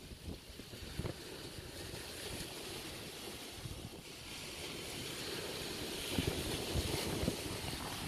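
Sea surf breaking and washing over a rocky shore, with wind buffeting the microphone. The wash of the waves grows louder about halfway through.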